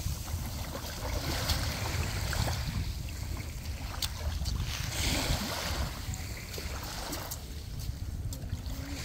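Wind buffeting the microphone, over small waves lapping at a pebbly shoreline, with a few faint clicks.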